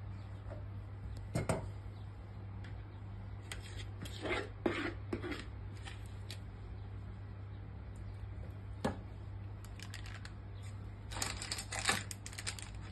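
Spoon and silicone spatula scraping brownie batter out of a plastic bowl and spreading it over a parchment-lined baking tray: scattered short scrapes and taps, with a cluster near the end, over a steady low hum.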